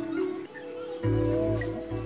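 Background music: held melodic notes over a bass line, with a short lull about half a second in before the bass comes back.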